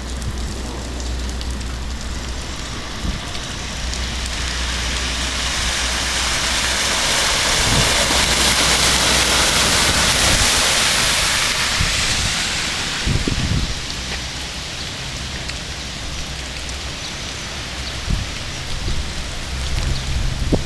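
Steady hiss of rain falling, swelling louder for several seconds around the middle, over a steady low hum.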